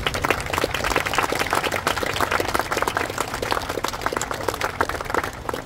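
Congregation applauding: many people clapping together, thinning out near the end.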